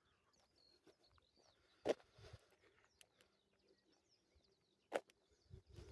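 Faint chirps of small birds, with two short knocks, one about two seconds in and one about five seconds in.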